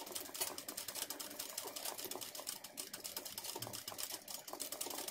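Ordinary domestic sewing machine stitching embroidery, its needle running as a rapid, even stream of clicks.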